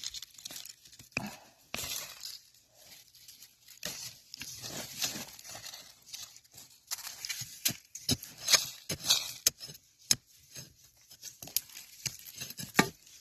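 Sweet potatoes being dug out of the soil by hand: irregular scraping and rustling of earth and vines, broken by sharp clinks.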